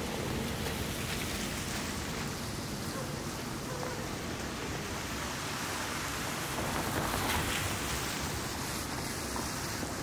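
Steady hiss of a wet city street: traffic on slushy pavement, swelling briefly about seven seconds in as a vehicle passes.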